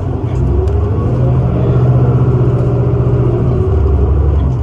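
2019 New Flyer Xcelsior transit bus pulling away and accelerating, heard from inside the cabin. Its drivetrain note steps up at the start, then a whine rises over the first couple of seconds and holds steady.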